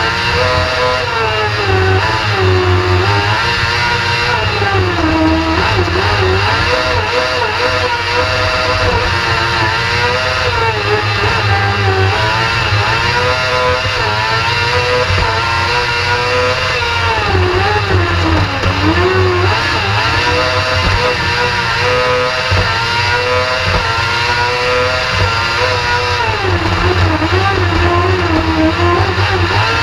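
Kartcross buggy's motorcycle-derived engine heard onboard at race pace, its pitch climbing hard and dropping again and again through gear changes and braking for corners.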